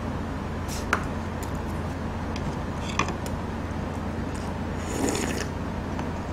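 Eating utensils clinking against a black stone stew pot: two sharp clinks about two seconds apart, then a brief noisy scrape about five seconds in. A steady low hum runs underneath.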